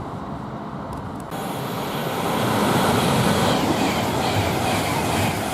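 Class 390 Pendolino electric train running through at speed. A rushing rumble starts suddenly about a second in and grows louder, and in the second half there are regular clicks of the wheels over the track, about two a second.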